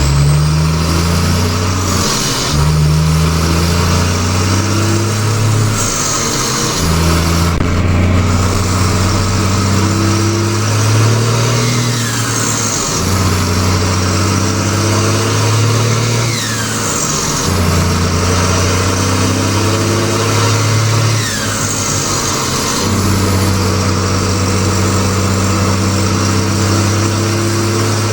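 New Holland TM150 tractor's turbocharged diesel running loud through a straight-pipe exhaust, with turbo whistle. The engine note climbs slowly and then drops back about every four to five seconds, as under repeated acceleration.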